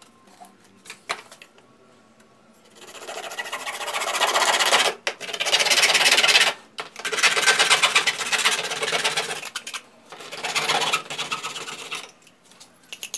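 Hand saw blade cutting through plastic PVC pipe: fast rasping strokes in four runs of a couple of seconds each, starting about three seconds in.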